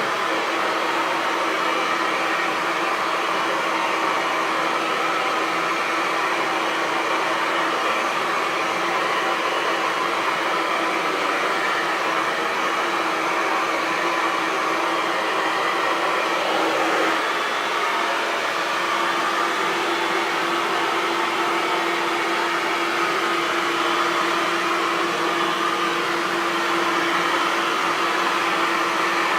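Hair dryer running steadily: a constant rush of air over a steady motor hum, the hum stepping slightly up in pitch a little past halfway.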